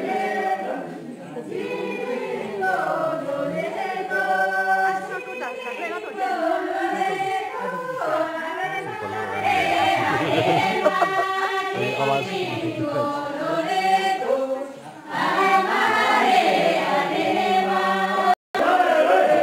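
A group of voices singing a traditional Kinnauri folk dance song together in chorus, the sound breaking off for an instant near the end.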